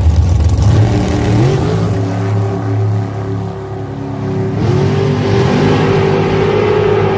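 A dragster launches from the starting line and accelerates down the drag strip. Its engine note climbs about a second in, eases, and climbs again about four and a half seconds in, holding a steady high note as it pulls away.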